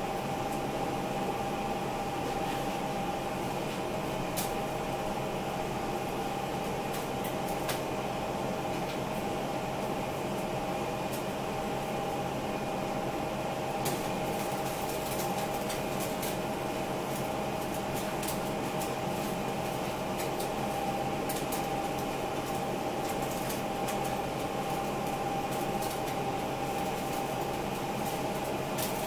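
A kitchen appliance running with a steady hum, with light ticks here and there.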